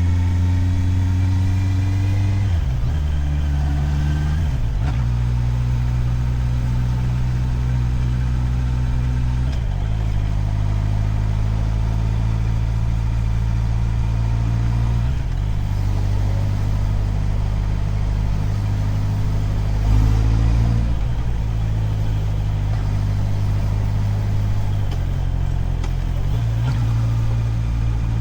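Motorcycle engine running on the move, its low steady note shifting to a new pitch several times as the rider changes speed and gear, with a brief louder surge about twenty seconds in.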